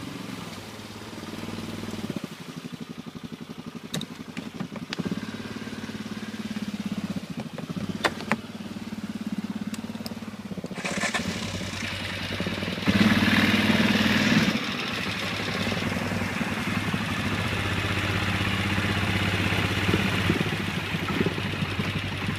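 Stels ATV 800 quad bike engine running as the ATV wades through a river, with water splashing and churning around it. About halfway through the engine revs up and the splashing gets louder for a second or two.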